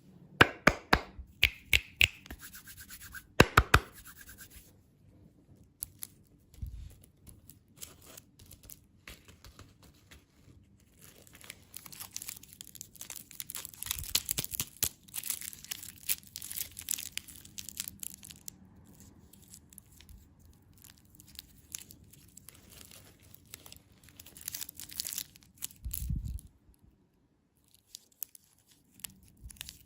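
Plastic candy packaging being handled: crinkling and tearing of wrappers, with a quick series of sharp clicks in the first few seconds and bursts of rustling later on.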